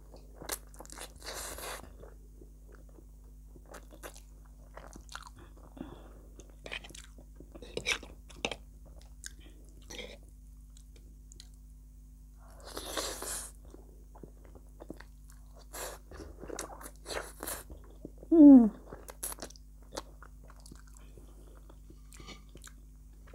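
Close-miked eating of thick instant noodles: wet chewing and small lip-smacking clicks throughout, with longer noisy slurps of noodles about a second in and again around twelve seconds in. A brief falling voice sound from the eater comes about eighteen seconds in, over a faint steady low hum.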